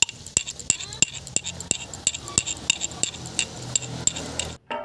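Hot oil spattering and popping around whole boiled eggs frying in an iron kadai: irregular sharp pops, several a second, over a low sizzle. They cut off abruptly just before the end.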